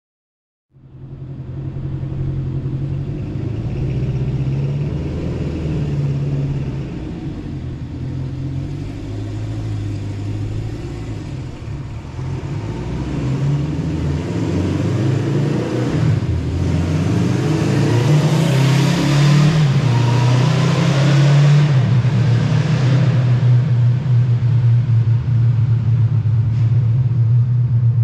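Honda CB750 Four's air-cooled inline-four engine running through its exhaust. About halfway through it is revved: the engine note rises, gets louder and is held higher to the end.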